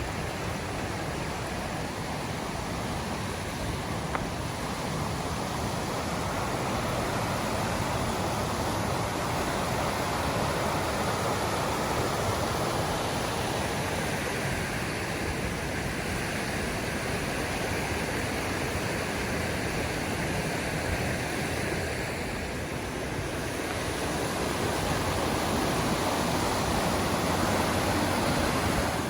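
Rushing creek water, a steady white-water rush that grows louder near the end.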